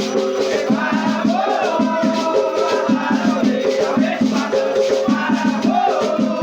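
Batuque ritual music: drums beaten in a steady rhythm with shaken gourd rattles (agê) and voices singing the chants.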